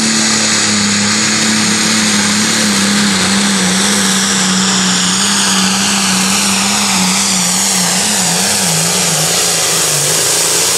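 John Deere 4455 Limited Pro Stock pulling tractor's turbocharged diesel engine running at full power as it drags the pulling sled, loud and steady with a high whine over the engine note. About two-thirds of the way through, the engine note begins to waver.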